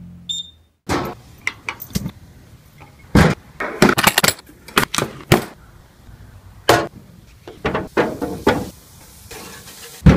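A string of irregular knocks and clacks, a few a second, as a hand handles a stainless-steel gas grill's lid and handle. They begin just under a second in, after a brief quiet.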